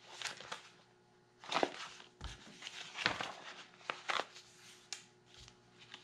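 Plastic sheet protectors in a three-ring binder crinkling and rustling as a page is turned, in a string of short crackles.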